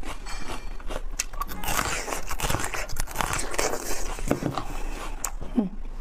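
Crunchy biting and chewing of a raw bitter melon: a dense, irregular run of crisp crackles.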